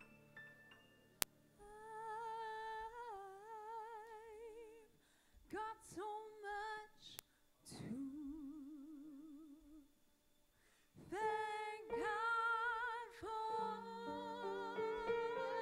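A solo singer holding long, slow gospel-style notes with heavy vibrato, phrase by phrase with short breaks, a lower line coming in around the middle. Piano chords sound under it at the start and come back near the end, and there is a single sharp click about a second in.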